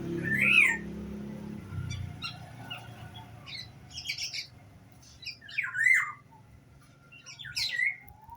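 Songbird calling: a run of short calls that sweep up and down in pitch, coming every second or two, with quieter chirps between them.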